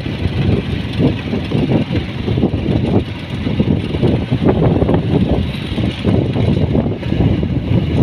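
Wind buffeting the microphone: a loud, gusty low rumble that swells and dips unevenly.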